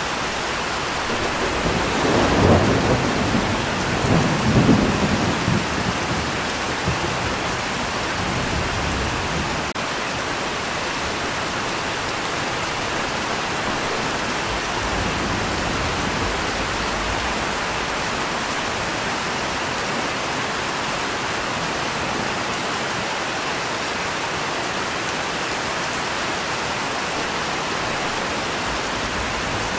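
Steady rain with a roll of thunder that rumbles in about two seconds in, swells twice and dies away by about ten seconds, leaving the even hiss of rain.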